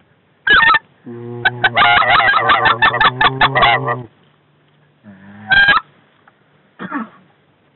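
Waterfowl calling, loud and close: a short high call, then a rapid run of honking calls for about three seconds, then two more single calls near the end.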